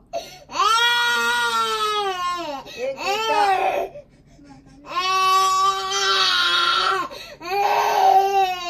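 Baby crying in four long wails, each rising and then falling in pitch, with a break of about a second halfway through. He is crying because he misses his mother.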